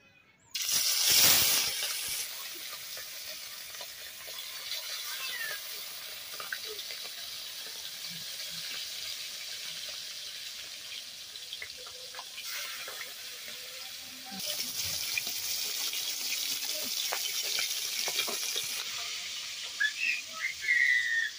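Turmeric-marinated small whole fish frying in hot oil in an aluminium wok: a loud burst of sizzling as the fish goes into the oil about half a second in, then a steady sizzle that grows louder again about 14 seconds in.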